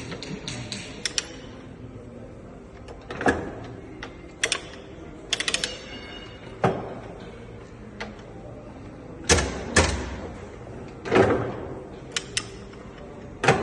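Irregular metal clunks and clicks from a 6N13P vertical milling machine, some single and some in quick clusters, over a faint steady hum.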